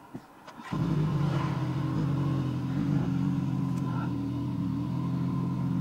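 Motorcycle engine starting up less than a second in and settling straight into a steady idle, after a couple of small clicks.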